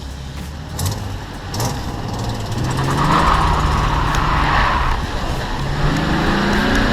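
Car driving on the road, its engine pitch rising twice as it accelerates through the gears, over steady road and tyre noise.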